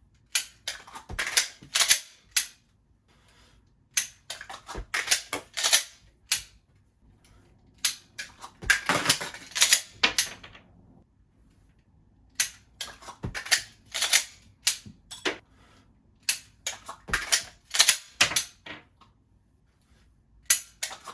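Dry-fire reload drills with a Glock 41 pistol: quick clusters of sharp metallic and plastic clicks and clacks as magazines are pulled from a belt holder and seated, the slide is racked and the trigger snaps. The clusters come about five times, roughly every four seconds, with quiet between them.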